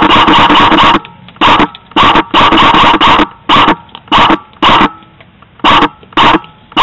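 Airsoft gun firing on full auto: a continuous stream of rapid shots for about the first second, then about nine short bursts of a few shots each, and a continuous stream again near the end.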